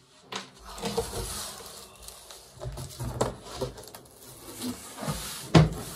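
Cardboard shipping box being opened by hand: the flaps scrape and rustle, with irregular knocks and one louder thump near the end.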